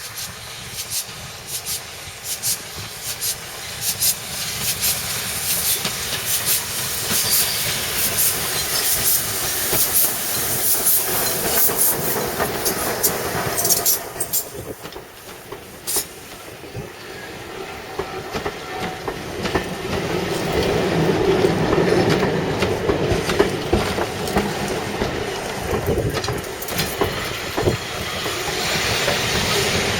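B12 steam locomotive No 8572 and its coaches rolling into a station. The wheels clatter over the rail joints with hissing, and a heavier rumble builds in the second half.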